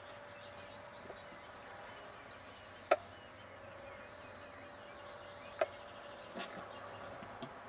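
Quiet outdoor ambience with a steady faint hum and two sharp clicks, one about three seconds in and a second about two and a half seconds later, followed by a few fainter ticks near the end.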